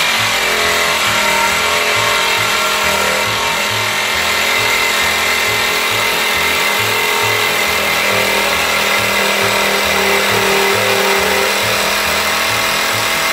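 DeWALT cordless jigsaw with a Lenox bimetal metal-cutting blade sawing through 10 mm steel channel, a steady, loud cutting noise of the blade in the steel. The steel is thicker than the blade's 6.4 mm maximum.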